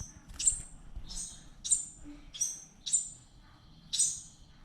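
Fledgling birds chirping: a run of about seven short, sharp, high-pitched chirps, each dropping quickly in pitch, repeated roughly every half second with a brief pause past the middle.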